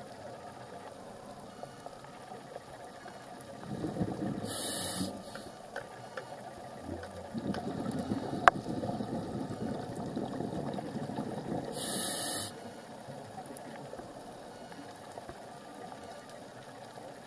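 Scuba diver breathing through a regulator underwater: two short hissing inhalations about seven seconds apart, with low bubbling rumbles of exhaled air. A single sharp click comes about halfway through.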